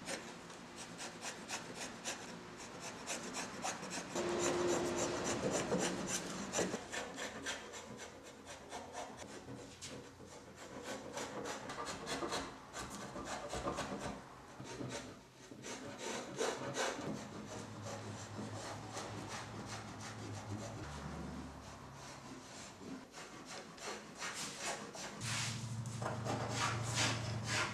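A scorp cutting and scraping across a walnut seat in quick, repeated short strokes, with shavings tearing off the wood.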